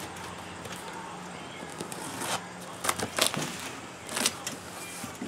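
Large cardboard shipping box being handled and opened: a few short cardboard scrapes and tape rips between about two and four and a half seconds in, over a low steady hum.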